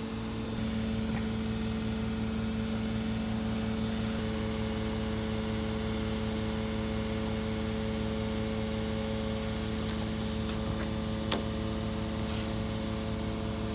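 A steady engine-like hum with a few light clicks, one about 11 seconds in.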